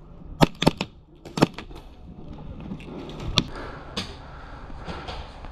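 Airsoft gunfire: about six sharp cracks, irregularly spaced, with three or four close together in the first second and a half and single ones about three and a half and four seconds in.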